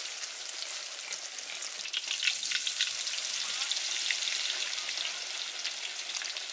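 Hot oil sizzling and crackling around whole climbing perch (Anabas testudineus) deep-frying in a wok, with sharp pops thickest about two to three seconds in.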